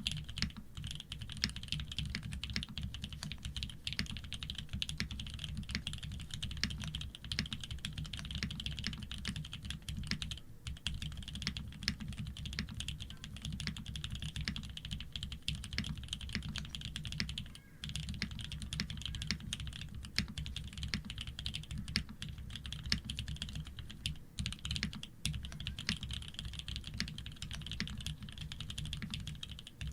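Continuous fast typing on a Shark60 custom mechanical keyboard with Fierce Girl switches, PBT keycaps and an aluminium plate without foam: a dense run of key clacks with a deep low thock and a brighter click, pausing briefly twice.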